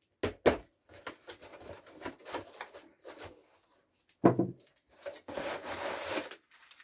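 Hands handling objects and packaging: two sharp knocks just after the start, scattered clicks and rustling, another knock about four seconds in, then a second or so of rustling and scraping.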